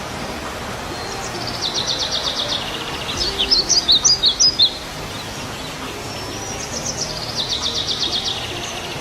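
A bird chirping and trilling over a steady background hiss. There is a rapid trill, then a burst of louder separate chirps around the middle, then another rapid trill near the end.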